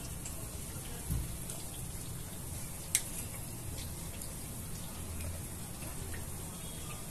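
Spoon plating thick shrikhand into fried puri cups on a white serving plate, over a steady low background hum: a soft thump about a second in and one sharp click near three seconds in.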